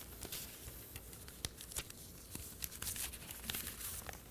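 Newspaper pages rustling and crinkling as they are handled and turned, in short irregular crackles.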